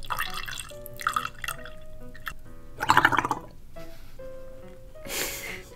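Coffee milk pouring in a thin stream into a hollow chocolate high-heel shoe, then slurping through a straw, loudest about three seconds in and again near the end. Steady background music plays throughout.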